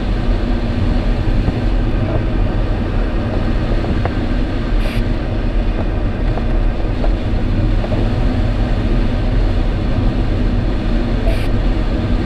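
Steady rush of air over the canopy inside an ASW 27 glider's cockpit as it circles in a strong thermal, heavy in low rumble. Two brief hisses come about five and eleven seconds in.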